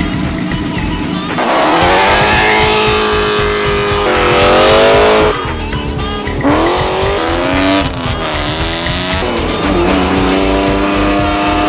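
Marcos sports car engine revving hard under acceleration, its pitch climbing and then dropping sharply at a gear change about five seconds in and again a few seconds later, over background music with a steady beat.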